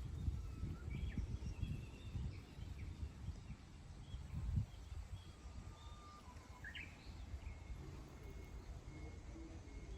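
Wild birds chirping and calling, with short high notes scattered throughout and one rising call about seven seconds in. A low rumble runs under the first half, with a thump about four and a half seconds in.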